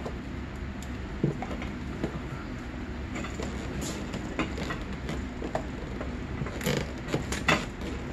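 Scattered small clicks, knocks and rubbing as a carburetor is worked by hand into its rubber intake boot, busiest near the end, over a steady low hum.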